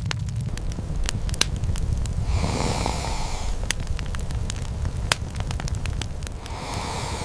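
Fire crackling, with irregular sharp pops over a steady low rumble and two soft hissing swells, one in the middle and one near the end.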